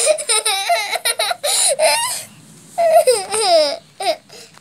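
A toddler's high-pitched squeals and yelps in bursts, then a long squeal that falls in pitch about three seconds in and a short last yelp near the end.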